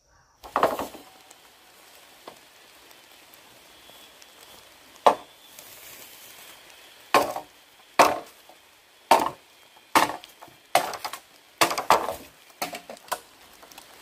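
Wood being chopped: sharp blows, one near the start and another about five seconds in, then a run of strikes about one a second through the second half.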